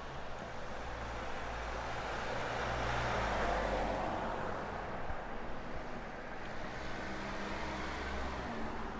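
A car passing on the road, its tyre and engine noise building to a peak about three and a half seconds in and then fading away, over a low steady rumble.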